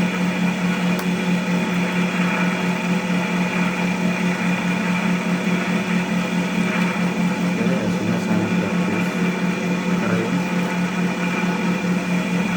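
Cast cotton candy machine running steadily, its motor and spinning head giving a constant hum while it spins out floss, turning at a speed that makes the floss come out dry and fibrous.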